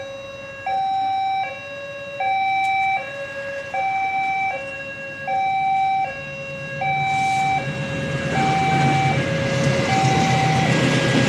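Railway level-crossing warning alarm sounding a steady alternating two-tone signal, a high note and a low note of about three-quarters of a second each, repeating. From about seven seconds in, the rumble of an approaching diesel-hauled passenger train grows under it and is the loudest thing by the end.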